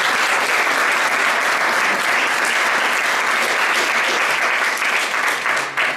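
Audience applauding, a steady dense clapping that stops suddenly near the end.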